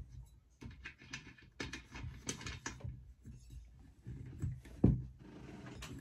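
Faint clicks and taps of fingers screwing a homemade spark-plug adapter finger tight into a two-stroke chainsaw cylinder's plug hole, with one louder knock a little before the end.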